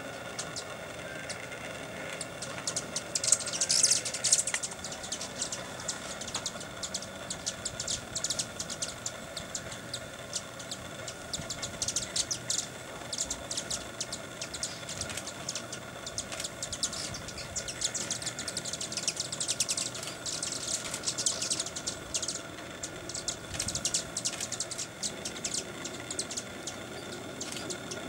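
Broad-tailed and Rufous hummingbirds chittering, rapid sharp chip calls coming in flurries, busiest about three seconds in and again around twenty seconds in.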